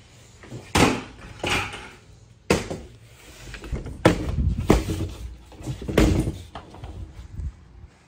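A plastic folding table being carried and set down: about six sharp knocks and clunks a second or so apart, over a low rumble of handling.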